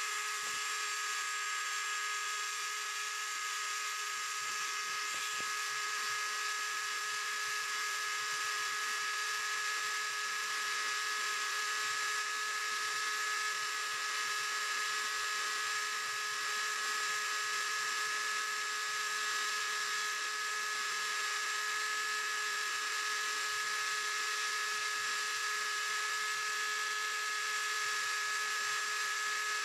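Small CNC machine running with a steady motor whine: several constant high tones over a hiss, unchanged throughout.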